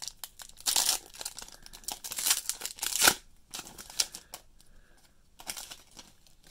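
Foil wrapper of a Panini Rookies and Stars football card pack being torn open and crinkled by hand, in irregular rustling bursts with the loudest rip about three seconds in, followed by softer rustling as the cards are handled.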